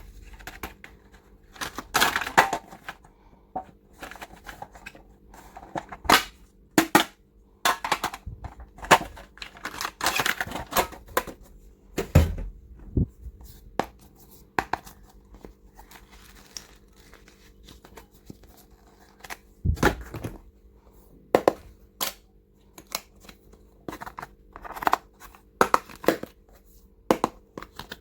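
Plastic packaging crinkling and tearing, amid many sharp clicks and knocks of small plastic items being handled, with a couple of heavier thumps, over a faint steady hum.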